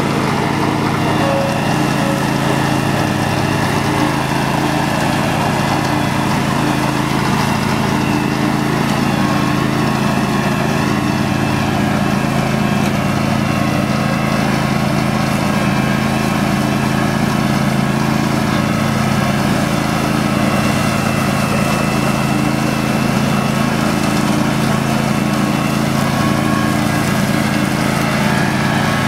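Garden Way Troy-Bilt lawn tractor's 14 hp Briggs & Stratton Vanguard V-twin running steadily at full throttle while mowing grass.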